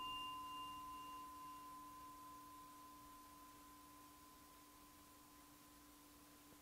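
A struck meditation bell-bowl ringing out, a low hum and a clearer higher tone held steady and slowly fading. The brighter overtones die away within the first couple of seconds.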